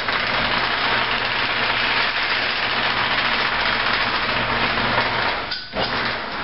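Wood lathe running with a large cedar lamp blank spinning on it: a steady motor hum under a loud, even hiss. The hum cuts out about five seconds in and the noise briefly drops away.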